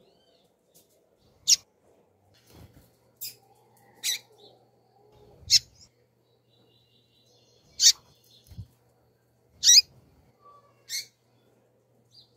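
Female double-collared seedeater (coleiro) giving short, sharp, high-pitched chirps, about eight of them, spaced irregularly. These are contact calls. A few soft low thumps come between the chirps.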